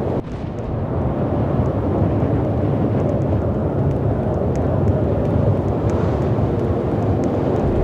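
A steady, loud low rumbling noise, with a brief dip just after the start and a few faint ticks over it.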